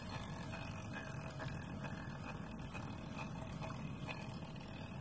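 A small live-steam plant running: a steady hiss and low rumble from the gas-fired vertical boiler, with faint, regular beats from the vertical single-cylinder steam engine.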